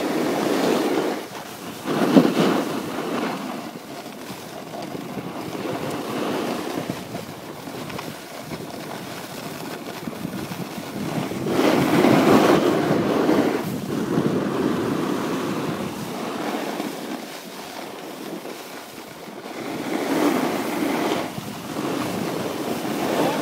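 Snowboard edges scraping and hissing across groomed snow, swelling and fading with each turn, with wind rushing over the microphone.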